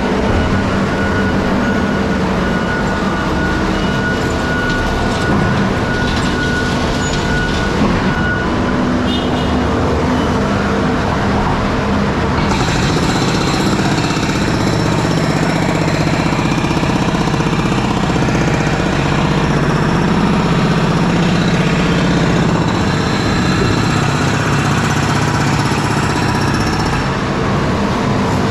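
Heavy diesel dump truck engine running steadily, mixed with construction machinery noise; a brighter, hissier layer joins about twelve seconds in.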